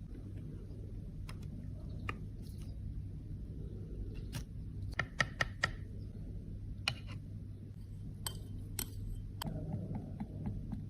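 Light clicks and taps of small hard objects, such as cosmetic cases, pans and tools being handled, scattered irregularly with a quick run of clicks about five seconds in, over a steady low hum.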